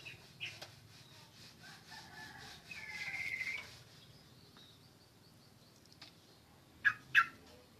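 Yellow-vented bulbul (trucuk) singing a bubbly, warbling phrase that peaks in a quick trill about three seconds in, then two short, loud sharp calls in quick succession near the end.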